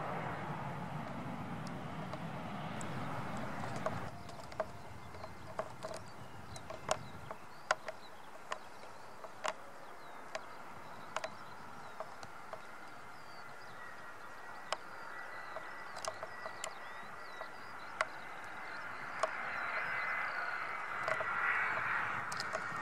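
Jet airliner engines rumbling and hissing as it climbs away after take-off, cut off after about four seconds. Then comes quieter outdoor background with scattered short sharp ticks. From about halfway, the thin whine of an approaching Airbus A320-family jet's engines starts, and its noise swells near the end.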